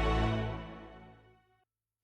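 Background music fading out to silence at the end of a track.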